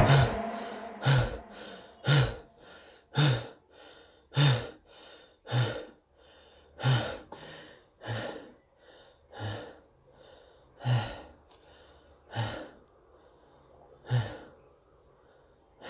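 A person's sharp, breathy inhalations or gasps, about a dozen in a row. They come about a second apart at first and slow to one every second and a half or more near the end.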